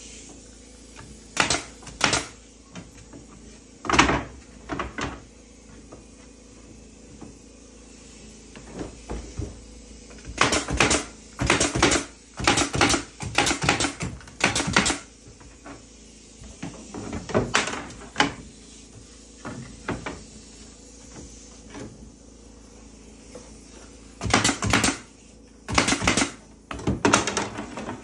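DeWalt pneumatic nailer driving nails into wooden boards: sharp shots, some single and some in quick runs of several, with pauses between.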